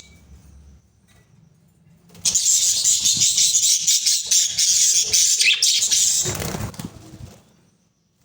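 Budgerigars chattering and warbling in a rapid, high-pitched, scratchy stream that starts about two seconds in and dies away near the end.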